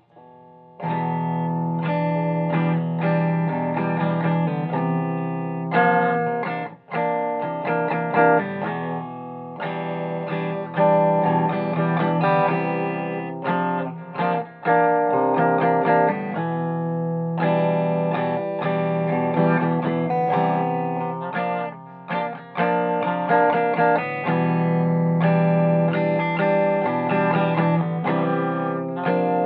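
Agile AS-1000 electric guitar played through a 1965 Ampeg amplifier, with the pickup selector in the middle position and volume and tone full up, playing a song's chords and riffs. The playing starts about a second in, with a few brief breaks between phrases.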